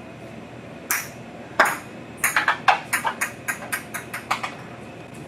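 Sharp clicks: two single ones, then a rapid run of about a dozen, some five a second.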